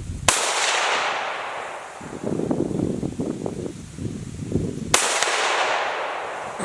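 Two gunshots about four and a half seconds apart. Each is a sharp crack followed by a long, fading echo.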